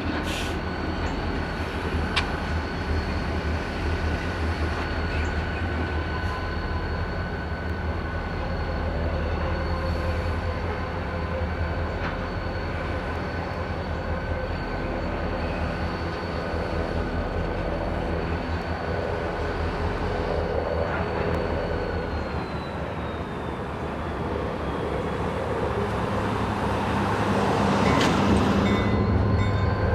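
Reading & Northern diesel locomotive running at low speed while switching, its engine giving a steady low hum. Wheels squeal with a steady high tone that dips in pitch about two-thirds of the way through and rises again. There are a few light clanks, and the sound grows louder near the end as the locomotive comes up to the crossing.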